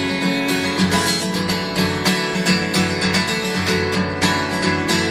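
Instrumental music led by acoustic guitar, with a steady rhythmic pulse and no singing.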